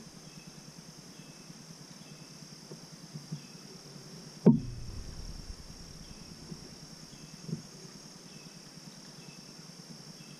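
A single sharp knock about four and a half seconds in, with a couple of fainter ticks before and after, over a steady high insect buzz with faint repeated chirps.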